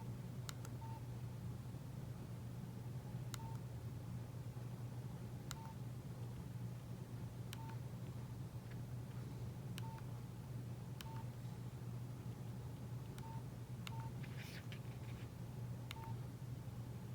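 Nokia 8600 Luna keypad tones: short single beeps, each with a small click, one every second or two as menu keys are pressed. A steady low hum sits underneath, with a brief rustle near the end.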